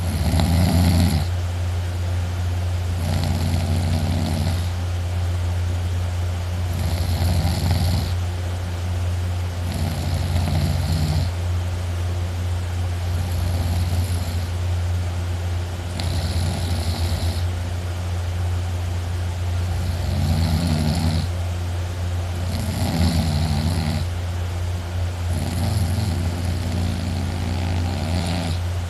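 A person snoring loudly, about ten snores, one roughly every three seconds, over a steady low hum.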